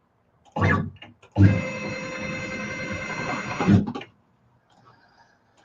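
Longmill CNC router's stepper motors whining steadily for about two and a half seconds as the gantry moves, starting and stopping abruptly. A brief voice sound comes just before it.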